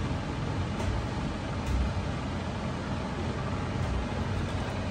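A steady low rumble of background noise.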